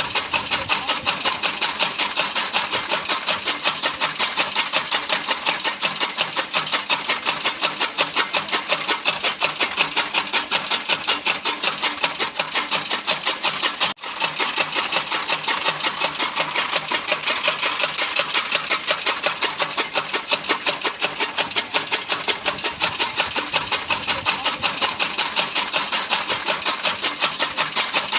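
Fodder cutting machine (chaff cutter) running, its blades chopping in a fast, steady rhythm of about four strokes a second. The rhythm breaks for a split second about halfway through.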